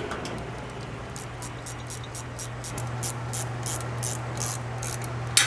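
Ratcheting wrench clicking in short, uneven runs, a few clicks a second, as the differential brace bolts are run in loosely, not yet snugged down. A steady low hum runs underneath.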